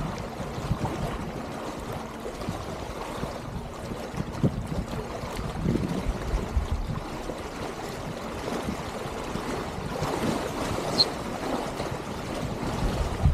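Water rushing and splashing along the hulls of a Dart 16 sailing catamaran under way, with wind buffeting the microphone in irregular low thumps.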